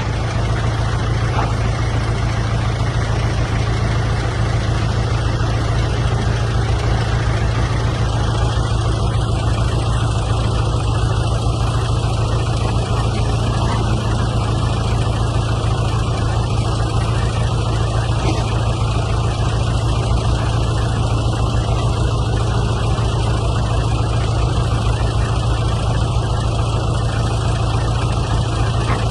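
Excavator's diesel engine running steadily, a continuous low drone.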